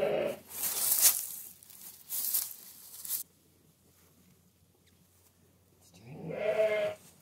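Straw and wool rustling from handling in the first few seconds, then a Katahdin sheep bleats once near the end.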